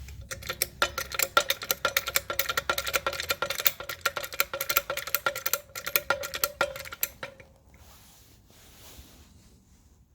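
Hydraulic trolley jack being let down after its release valve is turned, giving rapid metallic clicking and rattling with a faint ringing. The clicking lasts about seven seconds, then stops.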